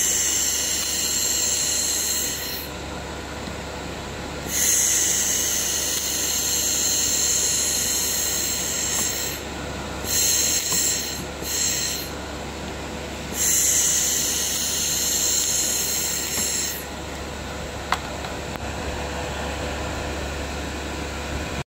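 1000 W handheld laser cleaning a weld seam on metal sheet: a loud, high hiss that switches on and off in spells of a few seconds, several times, over a steady machine hum.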